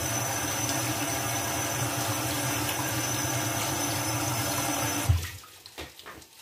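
Kitchen tap running steadily into the sink, turned off about five seconds in.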